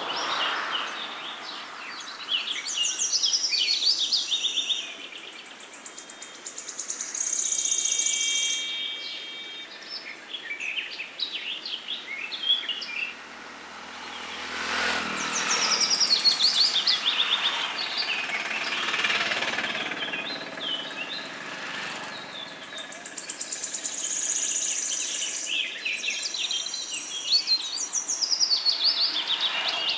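A chorus of many songbirds singing and chirping, with quick trills and high whistles overlapping and swelling and fading in waves.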